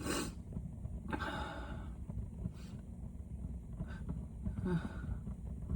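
A man with a head cold breathing and sniffing through a stuffy nose after a sneeze, with a short, faint voiced sigh a little before the end. A steady low rumble runs underneath.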